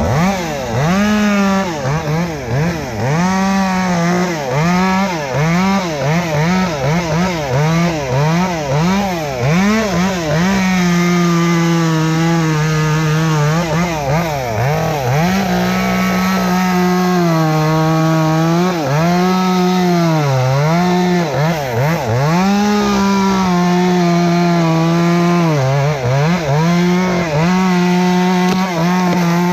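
Two-stroke chainsaw running hard, its pitch swinging up and down with repeated revving at first, then held at high revs with frequent dips as the chain bogs in the wood while cutting.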